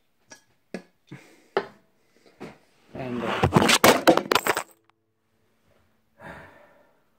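A Samsung Galaxy Note 5 phone, heard through its own microphone, topping over while recording: a few light knocks, then about three seconds in a loud rattling clatter of knocks and scraping as it falls and lands face down, with a short muffled rustle near the end.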